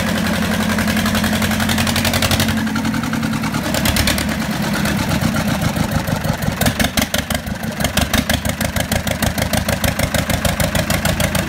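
Zetor 2023 crawler tractor's diesel engine running on its first start after years standing. Its note changes about two and a half seconds in and again about six and a half seconds in, when a distinct rapid beat comes through.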